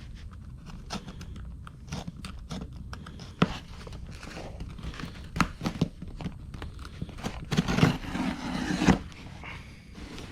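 Parts box being opened by hand: scattered clicks and scrapes, then a rustle of packaging from about seven and a half to nine seconds in.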